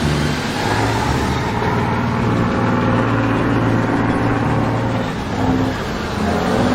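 An engine or heavy machine running steadily, with a low hum under a loud, even wash of noise; it cuts in abruptly at the start.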